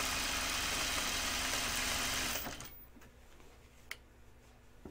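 Serger (overlock machine) running steadily as it stitches stretched elastic onto a fabric waistband, then stopping about two and a half seconds in. A single light click follows about a second later.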